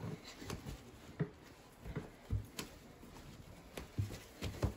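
Soft, irregular thumps on carpeted stairs as a toddler climbs them on hands and knees, with an adult stepping up behind.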